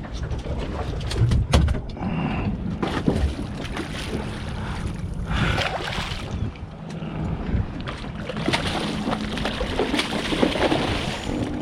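Skiff's motor running steadily at idle, with wind buffeting the microphone and a few sharp knocks on the boat about a second in.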